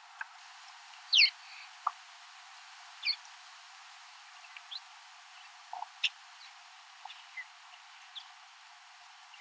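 Wild birds calling in short, scattered chirps over a faint steady hiss. The loudest is a quick downward-sweeping call about a second in, with a few more calls after it.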